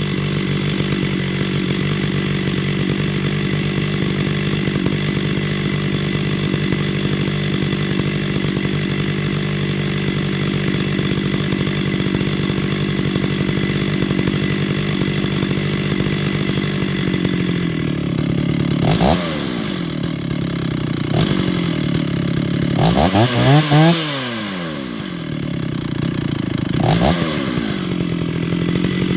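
Small two-stroke chainsaw idling steadily with the choke off. About 18 seconds in, the throttle is blipped twice, then held for one longer rev that rises and falls. After one more short blip it settles back to idle.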